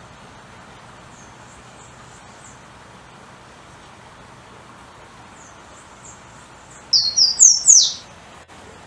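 Golden-crowned warbler (pula-pula) singing: two faint high phrases, then about seven seconds in a loud song of short whistled notes climbing step by step in pitch and ending in a quick falling slur. A steady hiss lies under it.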